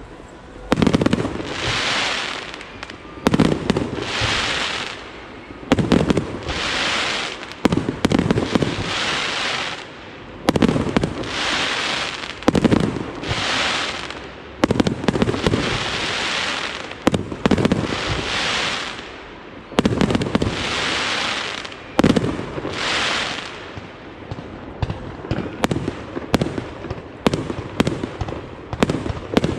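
Fireworks display: aerial shells bursting one after another, a sharp bang about every two seconds, each followed by a second or so of hissing. Near the end the bangs come faster and closer together.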